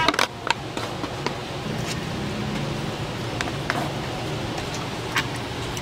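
A few sharp clicks and knocks of serving utensils against metal pots: a plastic rice paddle scraping a rice-cooker pot and a slotted metal ladle on a pot of braised cabbage. Under them runs a steady low background hum.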